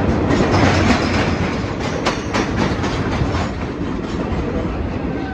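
Vintage New York City subway train running on the rails: a steady rumble with wheels clicking over the rail joints, a few sharp clacks about two seconds in.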